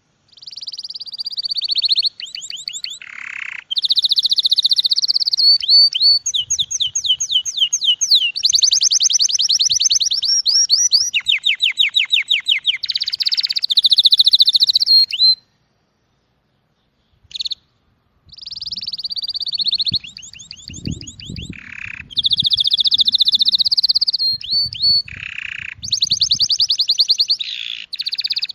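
A small songbird singing long, fast trilling phrases of rapidly repeated high notes, pausing for about three seconds midway.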